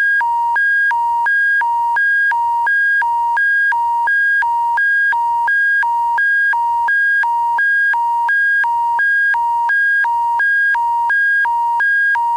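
Emergency-alert attention tone for the Alberta Emergency Public Warning System: a loud electronic tone that flips steadily between a low and a high pitch, about two high-low cycles a second.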